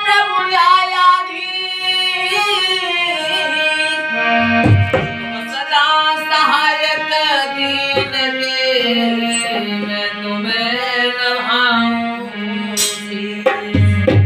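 A man singing a Hindi devotional sumirani in a long, wavering melodic line, accompanied by a harmonium's steady held chords. A dholak sounds a few strokes, about five seconds in and again near the end.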